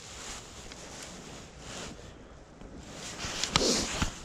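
Wind buffeting the microphone. About three and a half seconds in comes a short burst of rustling with a few sharp clicks, from hands handling the fishing rod and soft swimbait lure.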